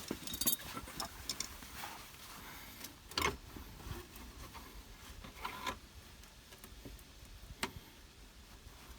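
Scattered light clicks and knocks of metal parts and hand tools being handled while a car's steering assembly is taken apart, with a few sharper knocks about three, five and a half, and seven and a half seconds in.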